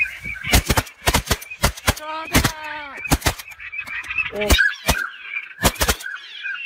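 Shotgun blasts from several guns, more than a dozen in quick, irregular succession, at ducks flying overhead. Between the shots come repeated honking calls of waterfowl.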